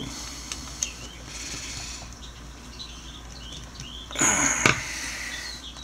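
A screwdriver working on a small-engine carburetor: a few light metal clicks, then about four seconds in a brief scrape with a thin squeak, ending in a sharp click that is the loudest sound.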